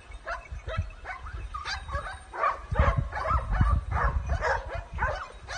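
A pack of hunting dogs barking and yelping, many short calls overlapping, over a low rumble.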